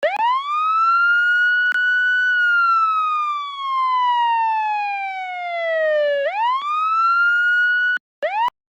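Police siren wailing. The pitch rises quickly, holds, then falls slowly over about four seconds and rises again. Near the end it cuts off abruptly, starts again briefly, and cuts off once more.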